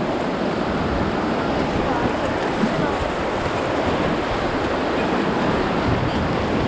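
Whitewater river rapids rushing in a steady, loud wash around a raft, with wind buffeting the microphone.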